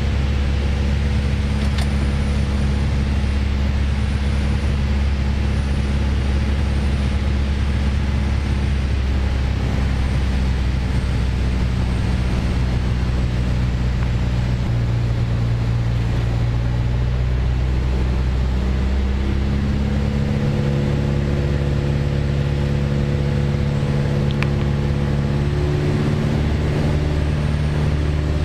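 A Piper PA28-161 Warrior's four-cylinder Lycoming engine and propeller droning steadily in flight, heard inside the cabin. Its note changes about two-thirds of the way through.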